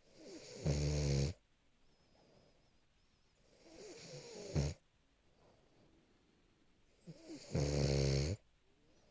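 French bulldog snoring in its sleep: three loud, buzzing snores roughly three and a half seconds apart, each starting quietly and swelling before cutting off, the middle one shorter.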